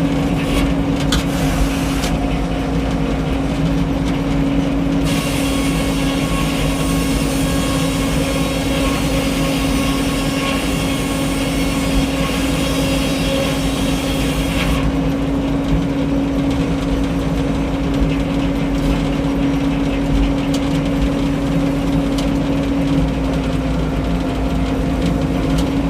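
Frick 01-C circular sawmill running steadily under power, with a constant engine hum. From about five seconds in to about fifteen, a higher hissing sound joins as the blade cuts through a white pine log, then drops away again.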